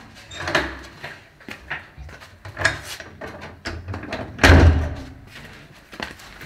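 Knocks and thuds at a wooden door, about half a dozen sharp ones, then one loud, heavy bang about four and a half seconds in.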